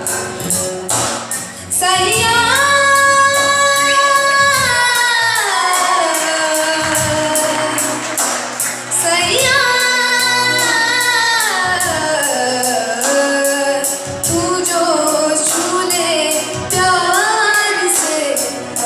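Live stage music: a young male singer with a high voice sings long held notes that slide down in pitch, over a band of electronic keyboard and drums with a quick, steady percussion tick.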